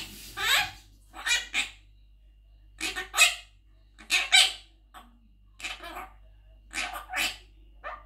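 Blue Quaker parrot (monk parakeet) talking in a string of short, mimicked phrases such as 'Are you good boy?' and 'Are you hungry?', one about every second.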